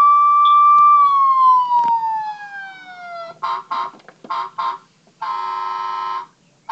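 Toy State Rush & Rescue toy fire truck's electronic siren from its built-in speaker, held high and then winding down over about two seconds. Then come four short electronic horn toots and a horn blast about a second long.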